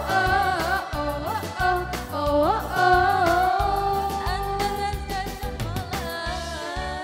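A woman singing into a microphone over backing music with a steady beat. Her voice slides up into notes twice, then holds one long note in the middle before easing off near the end.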